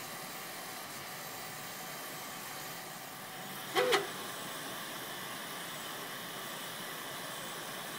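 Afinia 3D printer running: a steady whir of its fan and stepper motors with faint whining tones. A short, louder sound comes about four seconds in.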